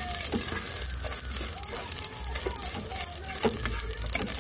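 Dry rice grains stirred and scraped with a spoon in a nonstick pot while being browned before the water goes in: a gritty rustle with many small clicks of the spoon.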